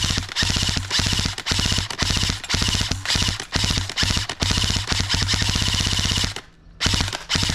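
Electric airsoft rifle (AEG) firing full auto in a string of short bursts at about fifteen rounds a second, the gearbox cycling in rapid clicks with brief pauses between bursts. A longer pause comes near the end, then more short bursts.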